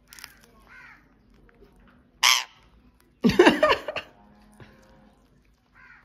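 Indian ringneck parakeets screeching: a short loud squawk about two seconds in, then a longer, louder harsh screech a second later, with softer calls around them.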